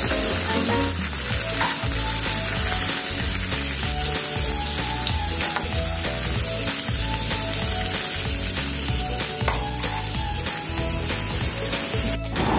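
Chopped tomatoes and onions sizzling in a frying pan as they are stirred with a spoon, under background music with a simple melody and bass line. The sound drops out briefly near the end.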